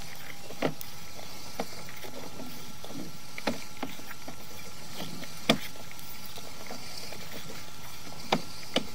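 Sewer inspection camera's push cable being pulled back out of the sewer line: scattered sharp clicks and knocks, about six in all, the loudest about five and a half seconds in, over a steady hiss.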